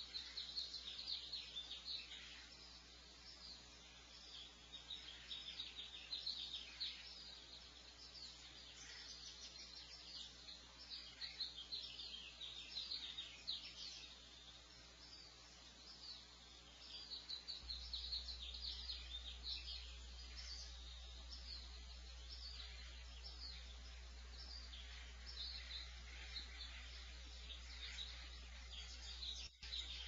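Songbirds chirping and singing, many quick high calls overlapping throughout, over a steady low electrical hum that steps louder a little past halfway.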